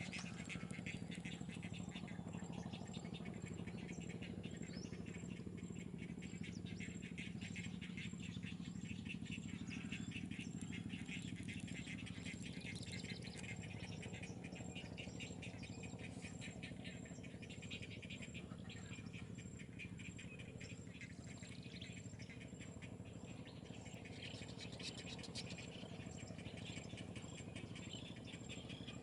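A dense chorus of small calling animals, a fast, even pulsing that goes on throughout, with a few chirps, over a steady low hum.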